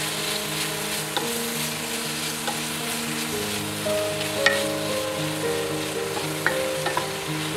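Shrimp and zucchini sizzling in a hot skillet while a wooden spatula stirs them, knocking against the pan with a few sharp clicks, the loudest about four and a half seconds in. Soft background music with held notes plays underneath.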